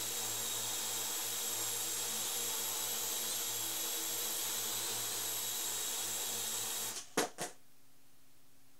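Parrot AR.Drone quadcopter hovering, its four motors and propellers making a steady whirring hum. About seven seconds in the motors cut out, followed by two quick knocks as the drone comes down on the floor rug.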